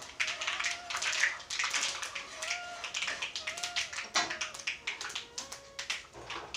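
Metal spoon clinking and scraping against the sides of a wok in quick, irregular taps while stirring dried red chillies in hot oil.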